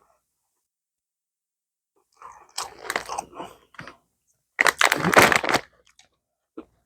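Someone biting into and chewing crisp Lay's potato chips. Two bouts of crunching start about two seconds in, and the second is louder.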